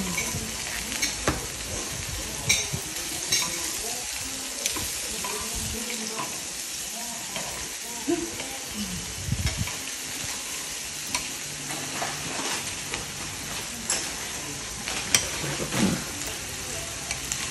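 Beef sizzling in a frying pan over a portable gas burner: a steady hiss, with short clicks now and then as tongs and chopsticks touch the pan and turn the meat.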